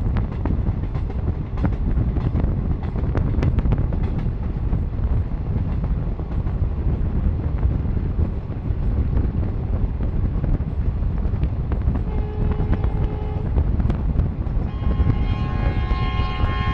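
Passenger train running at speed, heard from an open coach doorway: a steady rumble of wheels on the rails with wind buffeting the microphone. A horn sounds briefly about twelve seconds in, then again for the last two seconds.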